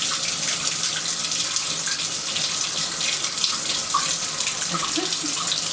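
Water running steadily from a tap while a dog is bathed, an even hiss of flowing and splashing water.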